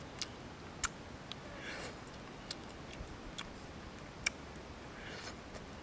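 Close-up eating sounds from a person biting and chewing a cooked fish: scattered sharp mouth clicks and smacks, with two short soft noisy bites or slurps about two seconds in and near the end.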